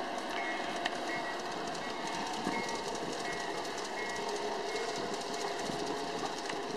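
Large-scale garden railway model train, a pair of New York Central diesel units pulling a string of cars, running past on the track with a steady rolling noise and occasional clicks.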